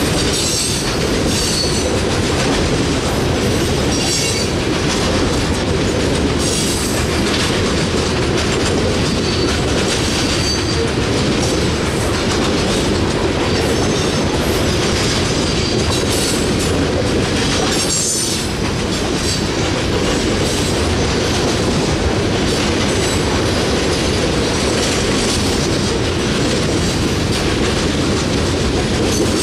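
Coal cars of a long freight train rolling past close by: a steady loud rumble and clatter of steel wheels on rail, with faint high wheel squeals now and then.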